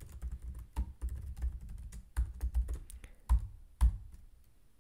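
Typing on a computer keyboard: a quick, uneven run of keystrokes, with two louder key presses near the end, after which the typing stops.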